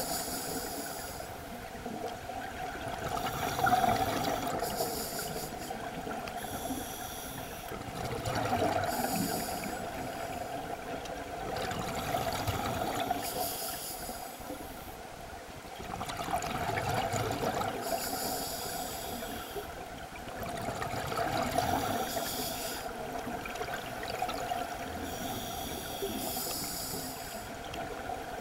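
Scuba regulator breathing heard underwater: a hissing inhale, then exhaled bubbles rumbling out. The cycle repeats about once every four to five seconds.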